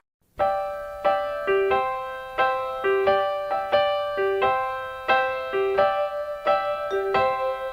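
Background music: a soft keyboard, like an electric piano, playing a slow, repeating pattern of struck chords. It starts after a split-second gap of silence.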